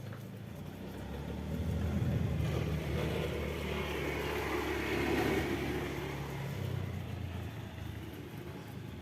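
A motor vehicle passing by: its engine and tyres grow louder over a couple of seconds, stay loud for a few seconds, then fade away.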